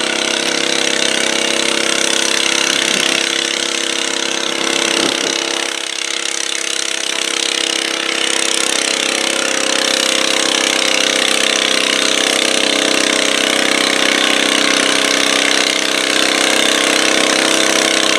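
Stock garden tractor's engine running steadily at full throttle under load as it pulls a weight-transfer sled, with the sled's pan scraping through the dirt.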